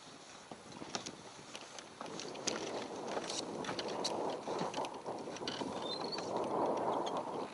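Wind and choppy water noise against a fishing raft, swelling in the second half, with scattered small clicks and knocks.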